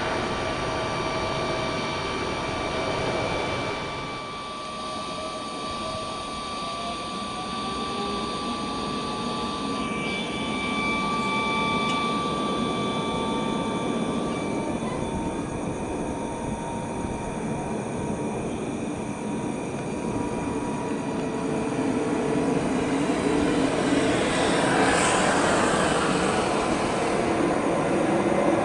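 Boeing 777-300ER airliner's GE90 turbofan jet engines during departure: a steady whine of several tones over a rushing rumble, swelling louder in the last few seconds.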